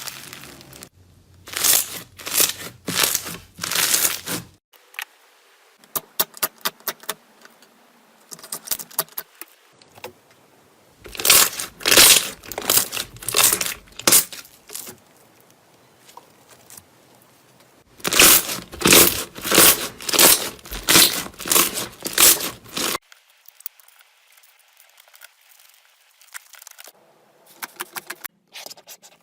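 Crisp crackling and crunching sounds of slime being pressed and worked with the hands. They come in quick rhythmic runs of strokes, separated by short quiet gaps where one clip cuts to the next.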